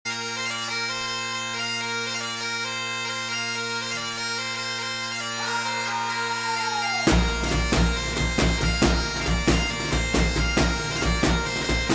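Bagpipe music: steady drones under a chanter melody, with a note gliding down just before a heavy drum beat comes in about seven seconds in.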